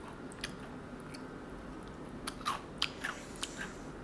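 A few soft mouth clicks and lip smacks in the second half, over quiet room tone.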